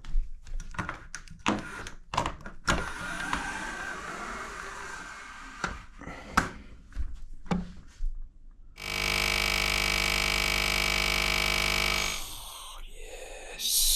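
Scattered clicks and knocks of things being handled, then a steady humming with a fixed pitch for about three seconds, like a small electric motor, that stops abruptly.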